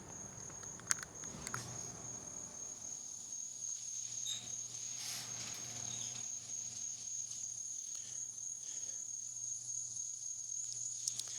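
Crickets chirring outdoors in a steady high, unbroken trill, with a faint low hum coming in a few seconds in and a couple of faint clicks near the start.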